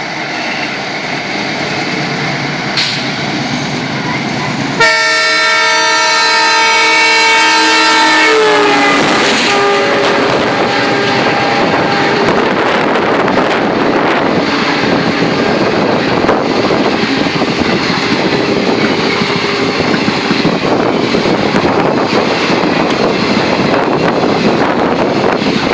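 WDM3A diesel locomotive approaching, then its horn blares for about four seconds and drops in pitch as the locomotive passes. After that, the steady rumble and rattle of the express train's coaches going by.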